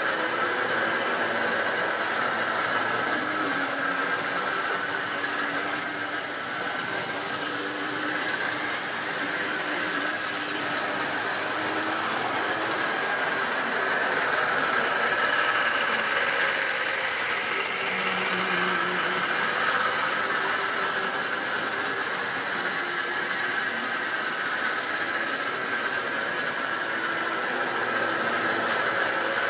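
Model railway train running round the layout: a small electric motor whining with a wavering pitch over the rattle of wheels on the track, a little louder around halfway as it passes close.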